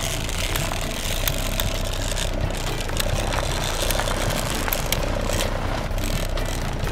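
A steady vehicle engine running sound with a low rumble and a faint steady hum, plus scattered light clicks, accompanying toy buses being driven along a road mat.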